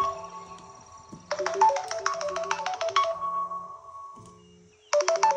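Samsung Galaxy Z Flip smartphone incoming-call ringtones: a bright, quick melodic ringtone plays about a second in and fades away, then another ringtone starts near the end. Underneath is a low buzz pulsing about once a second.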